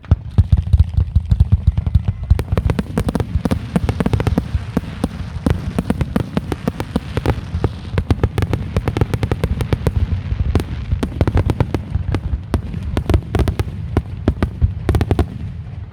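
Fireworks display barrage: a dense, rapid string of aerial shell bursts and loud bangs, many a second, starting abruptly and cutting off just before the end.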